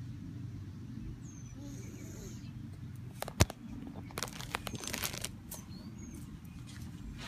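Savannah monitor lizard biting and chewing a hornworm: one sharp snap about three and a half seconds in, then a quick run of clicks and crunches lasting about a second, over a steady low background hum.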